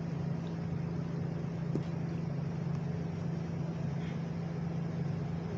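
Steady low room hum, with a faint click about two seconds in.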